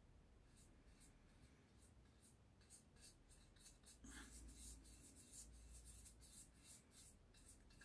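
Faint cloth rubbing on a wooden axe handle, working Stockholm tar into the wood in quick repeated strokes, about three a second, a little louder from about four seconds in.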